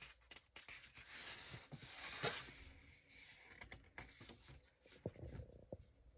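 Faint paper rustling and light handling noises as a printed booklet is picked up and moved off a table, with a slightly louder rustle about two seconds in and a few soft knocks.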